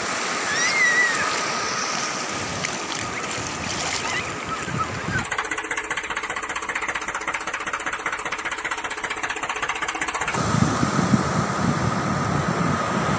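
A small motor running steadily with a rapid mechanical rattle and a thin steady whine. Wind buffets the microphone in the last few seconds.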